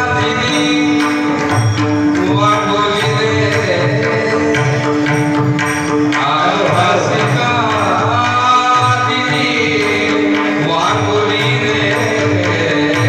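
Indian devotional singing by a man's voice, sliding through long ornamented phrases over a steady held drone note and a hand-drum rhythm.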